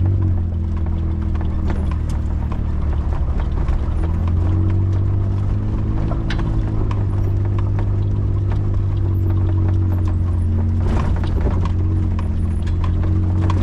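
A vehicle engine running steadily, with its pitch shifting slightly about four seconds in, and many small rattles and clicks over it.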